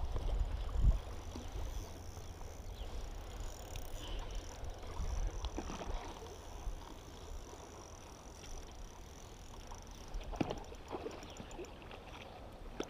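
Wind rumbling on the microphone, with a faint steady hiss and a few short knocks about ten seconds in from handling the spinning rod and reel.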